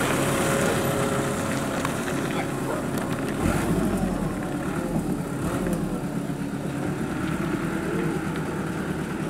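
Diesel engine of a light flatbed truck carrying a mini excavator, running steadily as the truck pulls away, its pitch rising and falling a few times around the middle.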